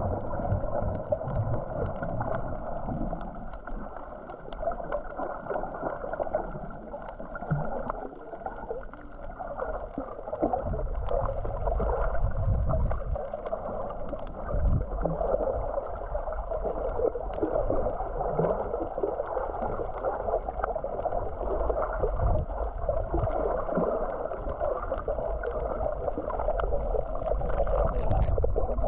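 Underwater action-camera sound while snorkeling on a coral reef: a steady muffled rush of water with a low surging rumble, dotted with many faint clicks and crackles.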